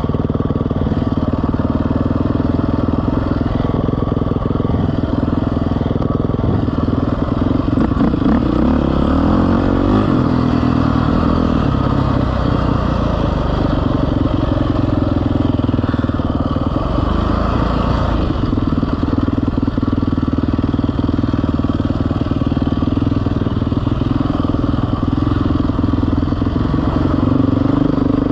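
A motor vehicle engine running loudly throughout, its pitch rising and falling with the revs around a third of the way in and again past the middle.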